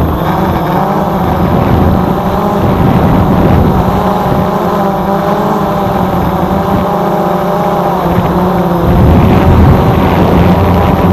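Multirotor drone's propellers whirring steadily, the pitch wavering slightly as the motors adjust. It grows a little louder and deeper about nine seconds in.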